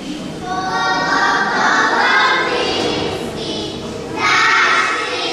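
A group of young children singing a folk song together in unison, with an accordion playing along; the singing enters about half a second in and a new phrase starts near the end.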